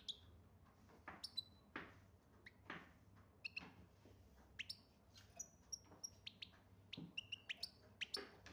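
European goldfinch giving short, scattered high chirps and twitters, faint, with a few soft clicks between them.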